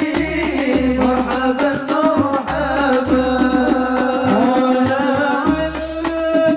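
Arabic devotional song (nasheed): a voice singing a drawn-out melody over hand percussion and a low drum keeping a steady beat.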